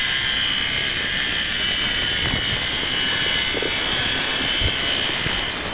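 Synthesized sound from a Max/MSP patch, set off by a hand over an IR sensor: a steady rushing noise with several high tones held in it, which fades down near the end toward a softer, ocean-like noise.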